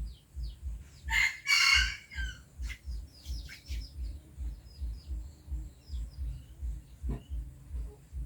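A loud, harsh bird call about a second in, lasting about a second, with fainter short high chirps scattered around it. Beneath them runs a low, even thumping about two to three times a second.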